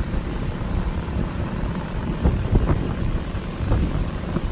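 Wind buffeting the microphone in uneven gusts, over the steady running of the bucket truck's engine that powers the boom hydraulics.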